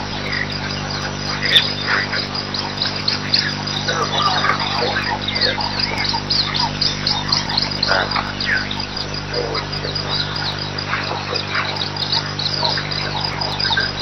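Daytime bush ambience: a dense chorus of high, quickly repeated chirps from insects and birds, with scattered bird calls, over a steady low hum.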